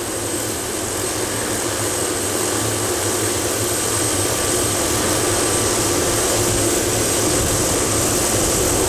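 Helicopter turbine engine and rotor running steadily, with a constant high whine over a low drone, growing gradually louder.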